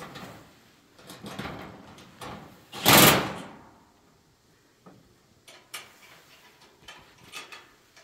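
Metal gazebo roof parts scraping and clanking as they are handled and fitted, with a loud scrape about three seconds in, followed by a few light clicks and knocks.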